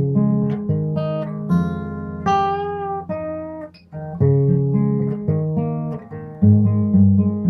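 Acoustic guitar playing plucked notes and chords over a low bass line, each note starting sharply and ringing out, recorded through a Nokia N8 phone's microphone.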